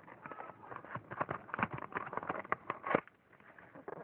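A paper party hat being handled and folded: a quick run of crinkling and clicking that stops about three seconds in.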